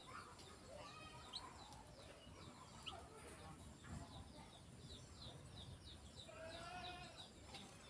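Male canary chirping faintly: a quick run of short, falling chirps, several a second, thickest in the second half.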